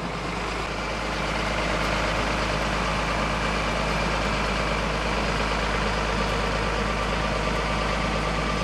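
Heavy vehicle engine running steadily, with a constant low rumble under a dense, even mechanical noise.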